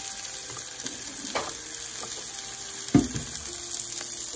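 Balls of raw ground chuck sizzling steadily on a hot electric griddle plate, with a single sharp knock about three seconds in.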